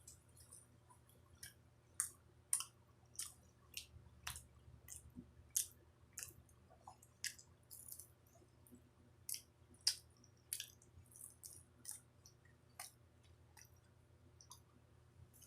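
Close-up chewing of samosa and jalebi: irregular wet mouth clicks and smacks, about one or two a second.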